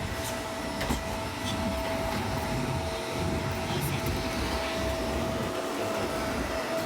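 Vacuum cleaner running steadily, a constant whine over a low rumble.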